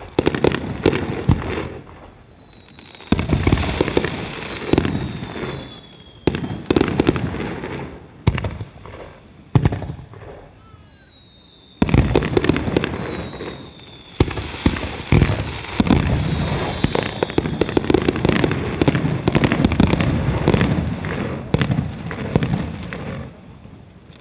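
Aerial fireworks shells bursting in quick succession with crackling between the bangs, and several falling whistles. The barrage thickens about halfway through into a dense, continuous run of bursts, then dies away near the end.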